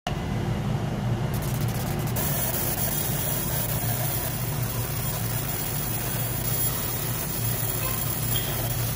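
Laser engraver running while it engraves a wooden panel: a steady machine hum with no change in level.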